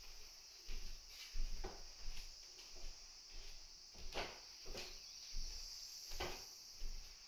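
Footsteps on a wooden floor, a soft knock about every half second to a second, over a steady high-pitched hiss.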